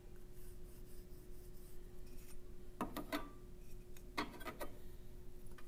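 Pencil drawing along a ruler on a wooden dragster body: a faint scratching stroke, then two short clusters of clicks and taps as the pencil and ruler are moved.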